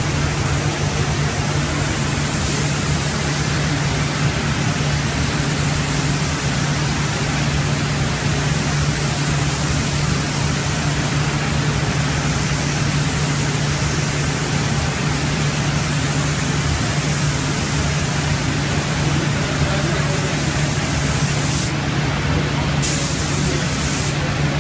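Pressurised water-curtain spray booth running: water pouring down the back wall over a steady low hum, with the hiss of a compressed-air paint spray gun, which lets up briefly twice near the end.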